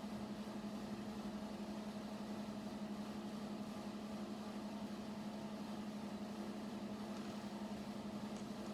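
Steady low mechanical hum with a faint hiss underneath, unchanging throughout.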